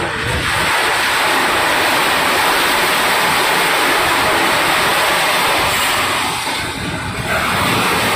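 Small pieces of scrap metal pouring out of a crane-hung steel box into a steel hold of scrap: a continuous loud rushing, dipping briefly about two-thirds of the way through.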